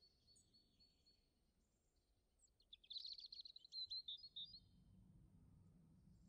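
Faint songbird chirping: a thin, high trill, then a quick run of chirps about three seconds in. A low steady hum comes in a little after four seconds.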